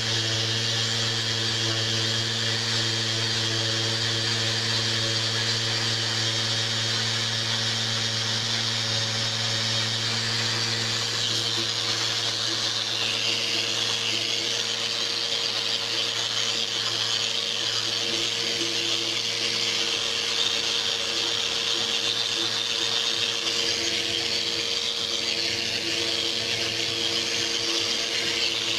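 Festool power sander running steadily, its abrasive pad grinding old lead paint off a bench: a constant motor hum under a hiss of sanding.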